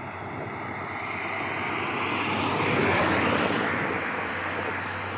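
A vehicle passing on the road, its noise swelling to a peak about three seconds in and then fading.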